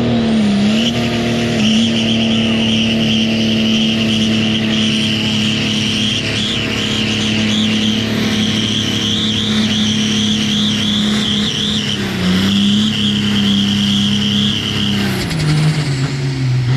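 Modified pro-stock diesel pulling tractor running flat out under load against the sled, its engine held at a steady high pitch with turbocharger whistle over it. The engine dips once about twelve seconds in, then winds down near the end. Lots of wheel speed but little headway: the tractor spins its tires and makes only about 100 feet.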